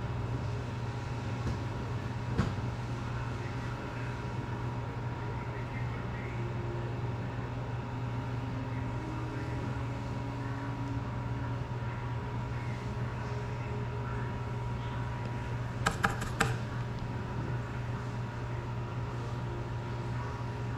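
Steady low room hum with a few faint steady tones. Small sharp clicks of soldering tools handling the drone's parts come through it: one about two seconds in, and a quick run of three or four clicks about three-quarters of the way through.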